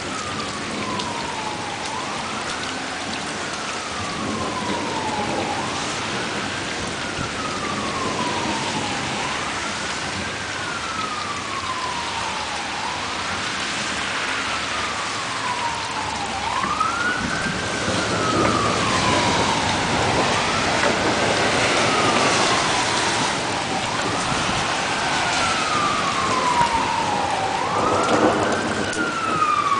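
Emergency vehicle siren in a wail pattern, each cycle rising quickly and falling slowly, repeating about every three and a half seconds and growing louder as it approaches. Steady rain falls throughout.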